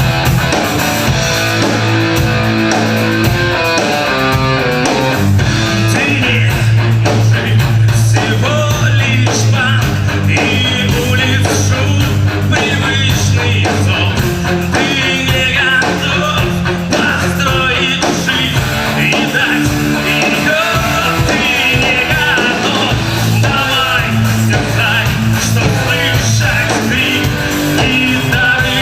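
A rock band playing live, loud and continuous, led by guitar, with a sung vocal line over it from about ten seconds in.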